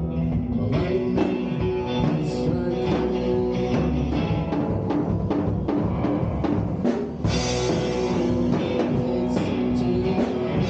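Power-trio rock jam played live: electric guitar over a drum kit, with frequent drum hits throughout.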